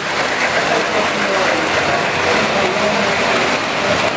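Toy electric trains running on metal track: a steady mechanical whir and rattle, under the chatter of people talking in the room.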